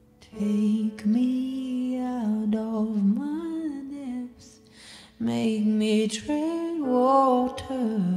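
Song playing: a woman singing a held, wavering melody, coming in just after the start, with a short break about halfway through.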